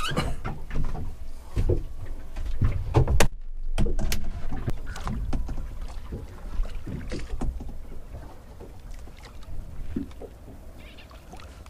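Irregular knocks, bumps and handling noise as a person moves about inside a small boat's cabin, over a low rumble. The knocks are loudest in the first few seconds, with a brief dropout, then become quieter and sparser.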